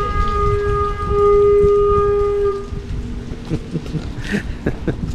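A horn sounding one long, steady single-pitch blast that cuts off a little under three seconds in.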